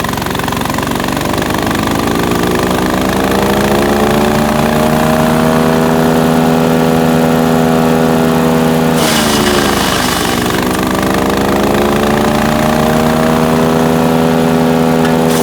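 Split-Fire 4090 wood chipper's engine running loud and steady. Its pitch sags twice as it takes load, near the start and again about nine seconds in, with a burst of chipping noise, and each time it climbs back to speed.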